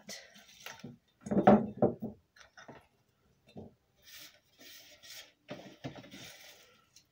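Dry, crisp freeze-dried food pieces rattling as they drop into a glass jar, with hands scraping and gathering more pieces across a metal tray. The loudest clatter comes about one and a half seconds in, followed by softer scraping.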